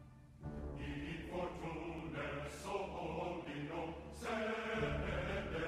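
Background music of a choir singing slow, sustained chant-like lines, coming in about half a second in after a brief lull.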